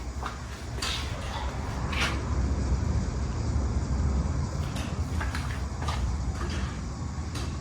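A 1996 Ventisilva wall fan running, with a steady low rumble and scattered short clicks throughout.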